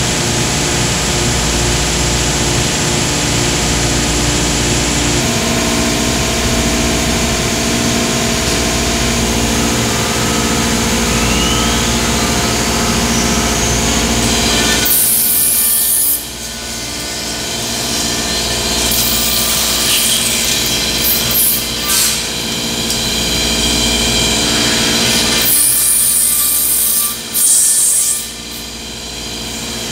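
Five-axis CNC router trimming an automotive door panel: a steady, loud run of spindle and cutting noise. A whine rises about a third of the way in, and there are louder, hissy stretches about halfway through and again near the end.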